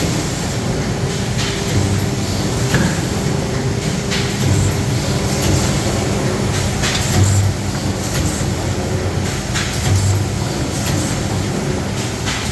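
CUBES ZTC-1100K automatic endpaper machine running on its first trial run. A steady mechanical hum is broken by a low surge about every two and a half to three seconds, one per machine cycle, with sharp clicks and clacks in between.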